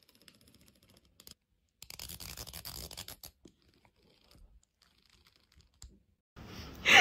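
Rapid scratching, about a second and a half long, among faint rustles, then a louder hiss of a new room and a sudden loud sound at the very end.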